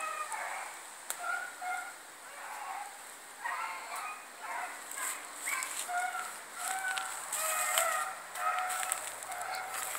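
Hounds baying on a rabbit's trail: a run of short, repeated calls, one to two a second, that become steadier and more regular in the second half.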